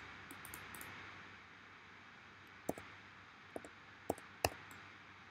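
Four sharp clicks of a computer mouse in the second half, over a faint steady hiss, with a few fainter ticks in the first second.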